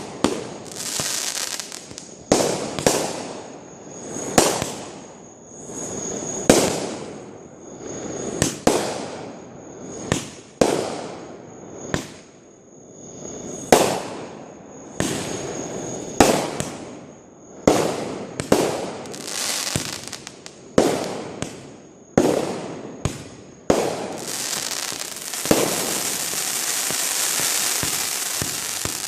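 Fireworks going off: a fast string of sharp bangs, one every second or two, each fading away in a rumble and crackle, with a thin steady high tone beneath them. In the last five seconds the bangs give way to a dense, continuous crackling hiss.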